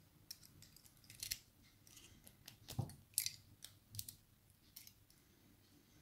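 Scattered light metallic clicks and scrapes from a brass lock cylinder, its key and a thin metal shim being handled, with a sharper pair about three seconds in.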